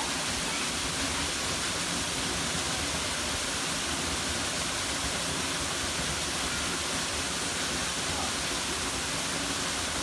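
Waterfall on a mountain stream, water rushing steadily and without a break.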